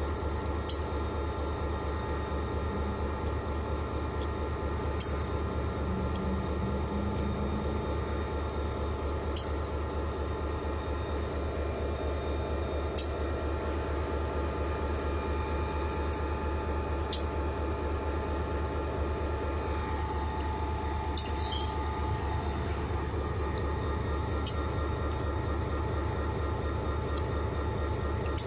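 EMD GP40-2 diesel-electric locomotive, with its 16-cylinder two-stroke engine, idling steadily while the train stands. Several steady tones hum over the low engine rumble, and a short sharp tick comes every few seconds.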